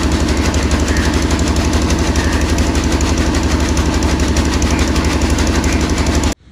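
Stationary engine, most likely a single-cylinder diesel driving a fodder chaff cutter, running steadily with a fast, even beat. It stops abruptly near the end.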